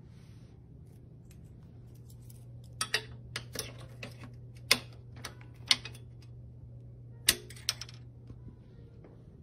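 Sharp metallic clicks and clanks from hands working the frame and folding hinge of a folding exercise bike, about seven knocks between three and eight seconds in, over a low steady hum.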